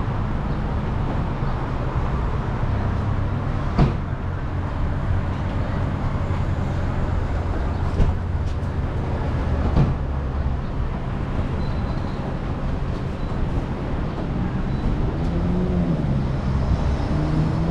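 Steady engine and road noise of a car under way, with a few short sharp knocks.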